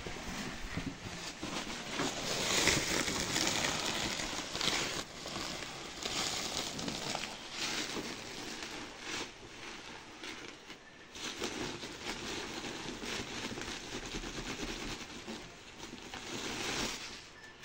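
Rustling and crinkling of a woven plastic feed sack as it is handled and opened, with dry livestock feed being scooped and poured into a plastic bucket, in irregular bursts.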